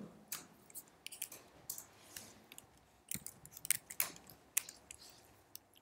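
Computer keyboard being typed on: sparse, irregular key clicks.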